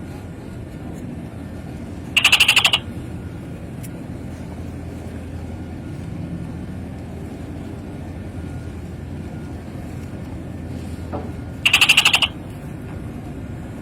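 Steady low engine rumble, with two short, high, rapidly pulsing chirps about ten seconds apart that stand out as the loudest sounds.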